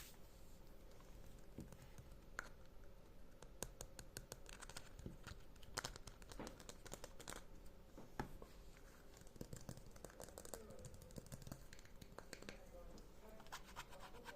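Quiet ASMR trigger sounds: light, irregular taps and clicks mixed with soft crinkling, coming in small clusters.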